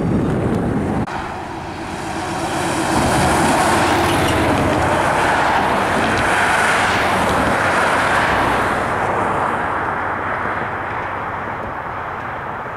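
Cars driving past over a road crossing. Tyre and engine noise swells over a few seconds, then fades away.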